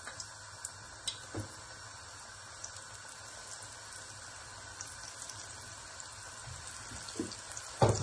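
Breaded cheese bites deep-frying in hot oil on a high flame: a steady bubbling sizzle, with a few soft clicks and knocks as more pieces are set into the pan and a couple of louder knocks near the end.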